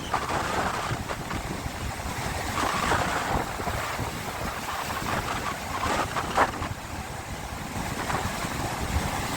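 Sea waves washing and splashing, with wind buffeting the microphone; a sharper splash comes a little past halfway.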